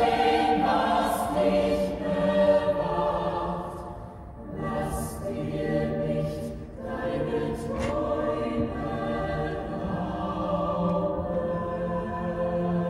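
A musical-theatre ensemble chorus singing long held notes over instrumental backing, with a brief drop in loudness about four seconds in.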